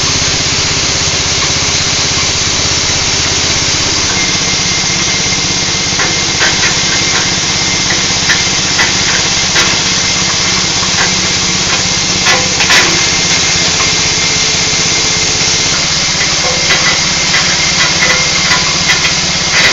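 Livestock feed chopper machine running steadily on its motor, with irregular sharp cracks and snaps from about six seconds in as fodder is fed through and cut by the blades.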